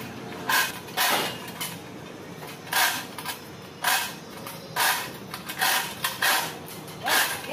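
Manual 3-ton chain block being worked: its chain rattles in short bursts, roughly once a second, with each pull.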